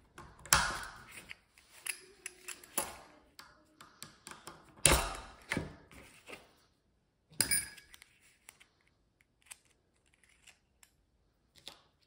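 Metal clicks, scrapes and clinks of a flathead screwdriver prying the faceplate off a door latch's metal body. The sharpest clinks come about half a second, five seconds and seven and a half seconds in, followed by a few faint ticks as the loose parts are handled.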